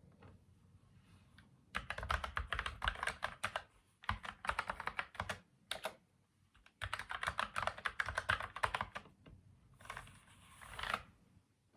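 Typing on a Logitech MX Mechanical Mini keyboard: rapid keystroke clicks in three bursts with short pauses between them. A brief swish follows near the end.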